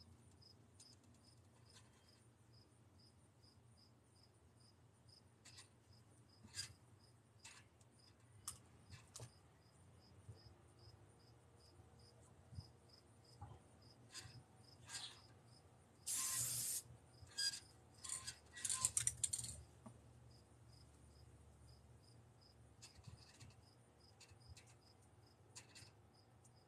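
An aerosol spray-paint can sprays a hissing burst of about a second, then several short puffs, with some scattered clicks before it. An insect chirps steadily in the background with regular high-pitched pulses.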